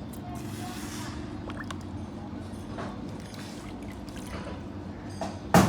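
Toyota GLi engine idling steadily while its tappet noise is checked. Just before the end, a rapid run of loud, sharp knocks starts, about three a second.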